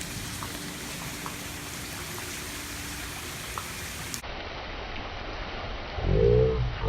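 Steady rain falling, an even hiss. About four seconds in, it cuts to a different recording with a low rumble and a short pitched call near the end.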